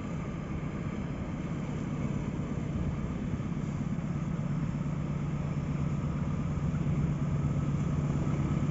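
Diesel-electric locomotive engine of an approaching passenger train: a steady low hum that slowly grows louder as the train draws nearer.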